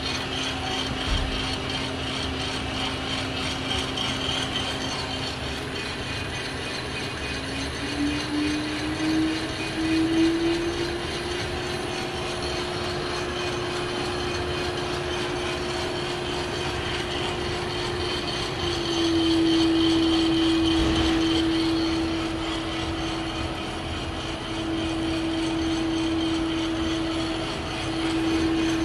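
Coffed SR5 drum coffee roaster running: a steady mechanical rattle with a motor hum that rises in pitch about eight to eleven seconds in, then drops slightly a little past halfway.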